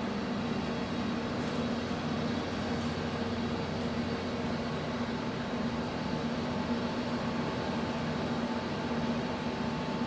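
Steady mechanical drone of a passing bulk carrier's engines: a constant low hum with a few higher held tones over a wash of wind noise.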